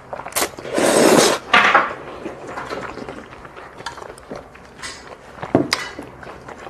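A mouthful of spicy jjolmyeon noodles slurped in, loud for about a second with a shorter slurp right after. Near the end, a metal spoon and chopsticks clink a couple of times against a stainless noodle bowl.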